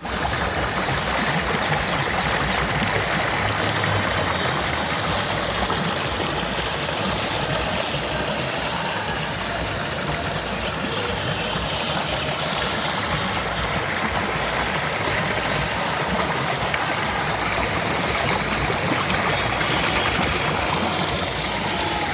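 Flowing water making a steady, even rushing sound.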